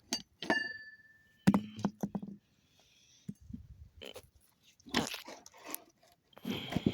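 Handling noise of a camera being picked up and repositioned: a series of knocks, clicks and rustles, with a brief clear ringing tone about half a second in.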